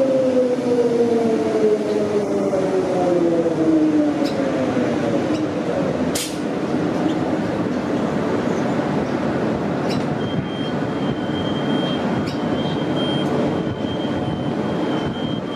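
Queensland Rail electric multiple unit slowing at the platform, its traction motors whining in several falling tones until it comes to a stand about six seconds in, marked by a brief sharp sound. The standing train then runs with a steady noise, and a thin, steady high tone starts about ten seconds in.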